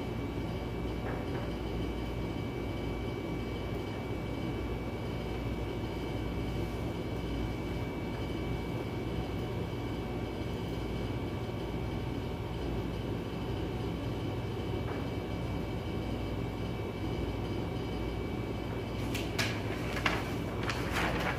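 Steady low mechanical hum of room machinery, with a few faint steady tones in it. Near the end, paper rustles and clicks as sheets are picked up and handled.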